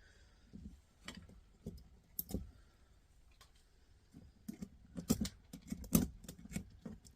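Parts of a cassette deck mechanism being levered apart by hand: scattered sharp clicks and small clatters of plastic and metal pieces. The clicks are sparse at first and come thicker over the last few seconds.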